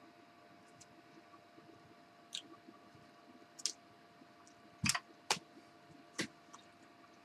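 About five sharp taps and slaps of hands during sign language, the loudest two close together about five seconds in, over a faint steady electrical hum.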